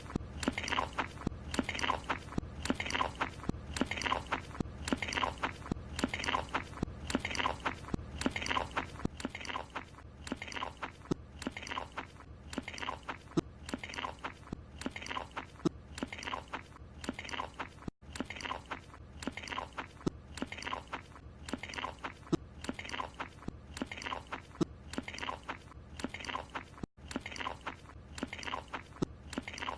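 Cartoon chewing sound effect: a croissant being munched with a wet, crunchy chomping that repeats in a steady, even rhythm, as a short loop played over and over. It cuts out for an instant twice, at the loop's seams.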